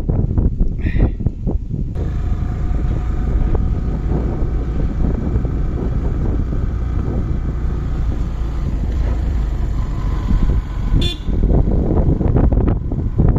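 Motorcycle riding along a road: its engine running under heavy wind buffeting on the microphone, with one brief sharp sound about eleven seconds in.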